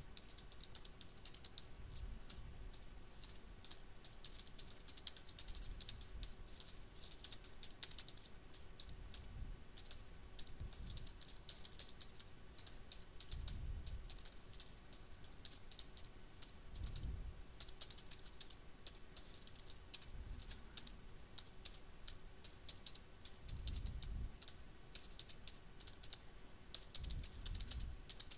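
Computer keyboard typing in quick runs of key clicks with short pauses between them, as a passage of text is typed out. A few low thumps come now and then under the clicks.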